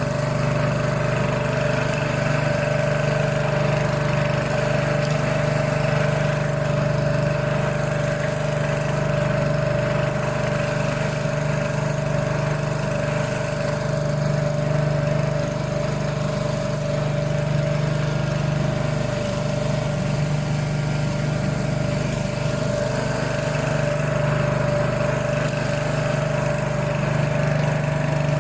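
A pressure washer's engine running steadily at constant speed, a continuous even hum.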